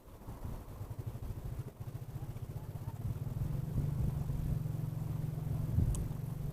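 A small engine running with a fast, even pulse, growing louder over the first few seconds and then holding steady. A brief sharp click near the end.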